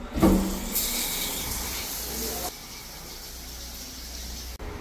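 Shower head spraying water with a steady hiss that cuts off sharply about two and a half seconds in. A knock with a short low tone comes just before the spray, and a quieter room background follows.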